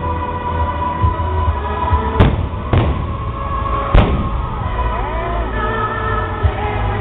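Fireworks display: aerial shells bursting with three sharp bangs, about two, nearly three and four seconds in, over continuous music.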